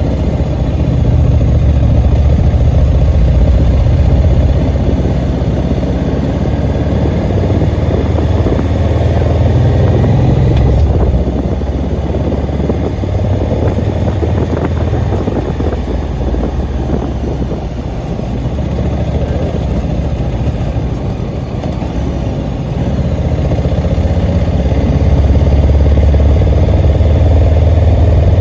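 Vehicle engine running while climbing, a loud low rumble that swells, eases off in the middle and builds again near the end.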